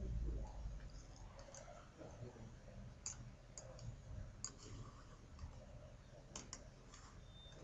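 Faint computer mouse clicks, about six of them scattered through the second half, over a low steady hum. A brief low rumble sits at the very start.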